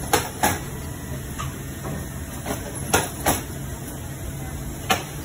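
Boot-factory machinery: a steady low hum with about six sharp, irregular clacks from the work stations.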